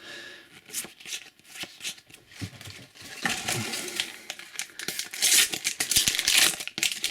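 A sticker pack wrapper being torn open and crinkled by hand, with small clicks and rustles of the stickers being handled. The crinkling gets busier and louder about halfway through.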